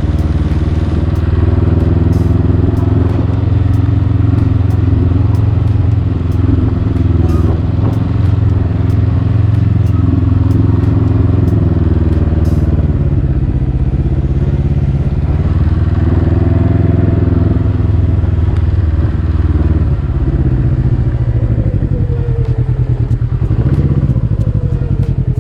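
Can-Am Ryker three-wheeler's engine running while under way, its pitch rising and falling several times with changes of speed, then dropping and picking up again near the end.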